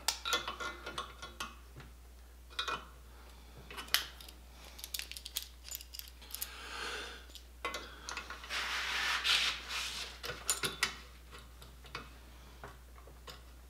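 Vise grips (locking pliers) clinking and clicking against a steel brace as they are handled, adjusted and clamped shut, in scattered short metallic knocks with a couple of longer scraping rustles around the middle.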